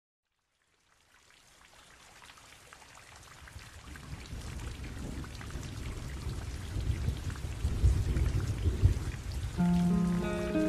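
Rain with rumbling thunder fading in from silence and growing steadily louder, the low thunder rumble heaviest a couple of seconds before the end. Near the end a held musical chord comes in over the rain.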